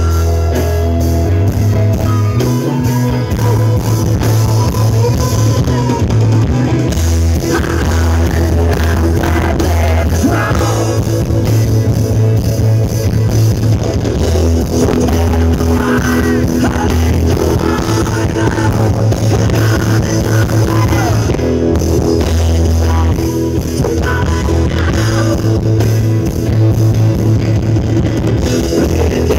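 Live rock band playing, led by electric guitar over a loud low bass line, amplified through the stage sound system.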